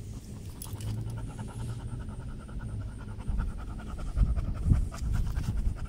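Dog panting rapidly and steadily through an open mouth, with a few low thumps about four seconds in.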